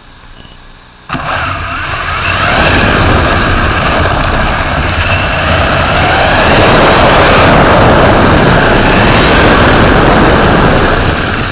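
Onboard sound of a radio-controlled Lancia Delta rally car pulling away and gathering speed: motor and drivetrain noise with a low rumble from the chassis. It starts suddenly about a second in and grows louder as the car speeds up.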